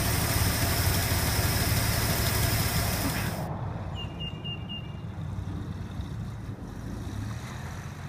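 AMC 232 inline-six engine of an International Harvester Scout II idling steadily and smoothly up close, its ignition timing just set. After about three and a half seconds it gives way to a fainter, more distant engine hum, with a quick series of short high bird chirps.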